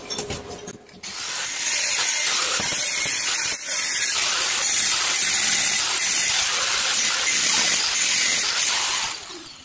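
Handheld angle grinder cutting into steel square tubing, a loud steady hiss that starts about a second in, dips briefly midway, and winds down near the end.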